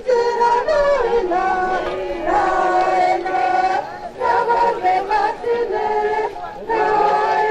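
Several voices singing a slow song together, holding each note before stepping to the next.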